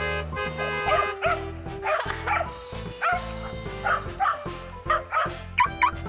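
Welsh corgis yipping and barking in short, repeated calls about twice a second, over background music.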